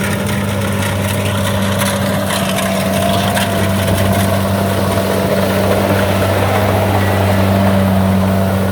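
Kubota rice combine harvester running steadily under load, a constant engine hum with a slightly wavering mid-pitched whine from the machinery, growing a little louder through the clip.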